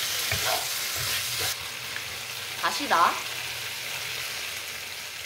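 Pork and vegetables in gochujang sauce sizzling in a stainless steel frying pan, stirred with a wooden spatula. The hiss softens a little about a second and a half in.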